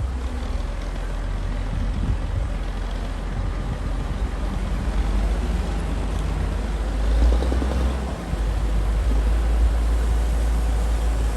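Komatsu D60P bulldozer's diesel engine running steadily under load as it works through mud and soil, with a deep rumble that swells briefly about seven seconds in.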